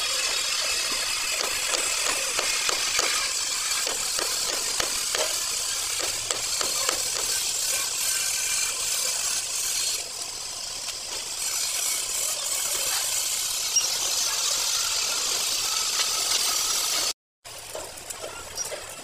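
Stick-welding arc burning a rod along a drilling machine's steel chain roller under repair: a steady crackling sizzle with fine spitting clicks. It drops out for a moment near the end and comes back quieter.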